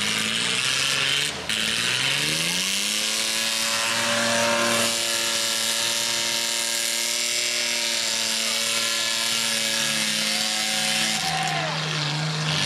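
An engine speeding up over about three seconds, running steadily at high speed, then dropping in pitch near the end.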